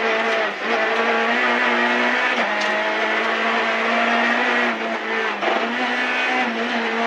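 Rally car engine running hard at high revs, heard from inside the cabin. It holds a steady pitch with a few brief dips.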